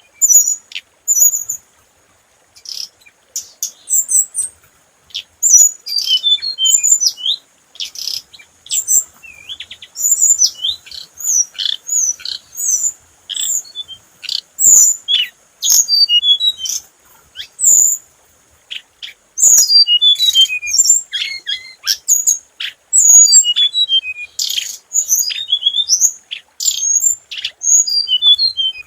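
Hồng hạnh (chestnut-flanked white-eye) singing, a lure-call recording: rapid, thin, high chirps and twittering phrases in quick clusters with short pauses, over a faint steady high hiss.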